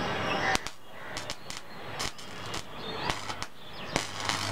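Electric arc of a homemade 230 V mains salt-water welding machine, its rod struck against a steel plate: irregular sharp snaps and crackles. About four seconds in, the arc catches and a steady low mains buzz joins the crackling.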